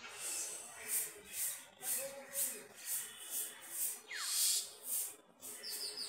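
A never-ending rhythmic swish-swish, a hissing swish repeating about twice a second, with a bird calling over it: a short falling whistle about four seconds in and quick chirps near the end.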